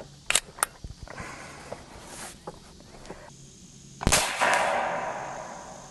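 Seneca Dragon Claw .50 caliber big-bore PCP air rifle firing a single shot on its high-power setting about four seconds in: a sharp report followed by a long fading echo. Two light clicks come near the start.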